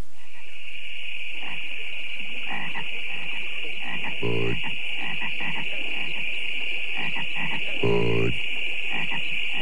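Frogs croaking in a night swamp: two short, deep croaks about four seconds apart, over a steady high-pitched hiss and faint small clicks. These are the Budweiser commercial's frogs croaking the syllables 'Bud' and 'Weis'.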